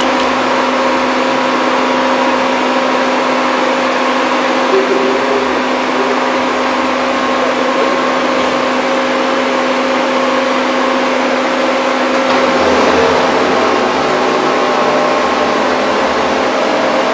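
Large industrial drilling machine running steadily: a loud machine noise with a steady hum and whine. About twelve seconds in, a deeper rumble joins.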